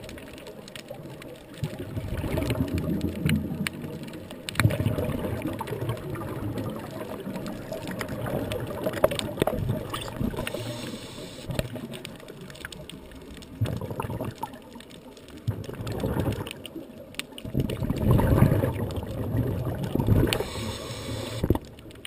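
Scuba diver breathing through a regulator underwater: bursts of exhaled bubbles gurgling every few seconds, the longest and loudest near the end, with a few sharp clicks.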